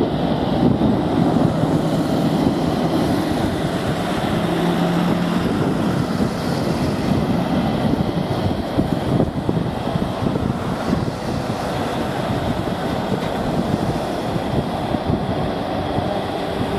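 Boeing 737-800's CFM56-7B turbofan engines at takeoff power during the takeoff roll, a steady rushing jet noise as the airliner accelerates and rotates near the end.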